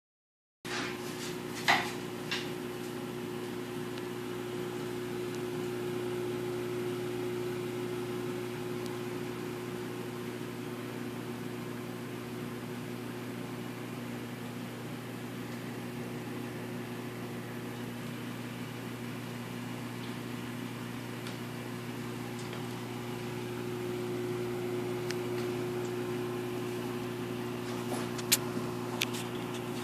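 Steady electric hum and water hiss of a reef aquarium's running pumps and circulation, with a few sharp clicks about two seconds in and again near the end.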